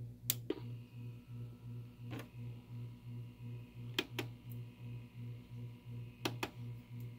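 Vinyl 45 rpm single spinning under the stylus before the music starts: sharp pops and clicks every couple of seconds, several in close pairs, over a low pulsing hum about three times a second.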